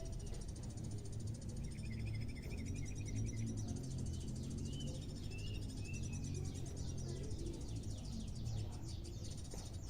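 Greater green leafbird (cucak ijo) giving short chirps over a fast, high, insect-like trill and a steady low hum.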